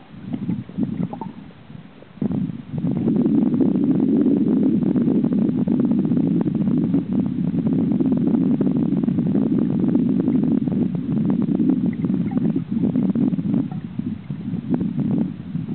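Muffled low rumble of river current flowing around an underwater camera, with small crackles throughout; it grows louder and steadier about two and a half seconds in.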